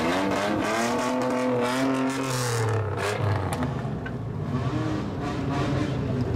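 Car engine revved through its exhaust as the car pulls away slowly: the pitch climbs and holds for a couple of seconds, drops about three seconds in, then a shorter rev rises and falls near the end.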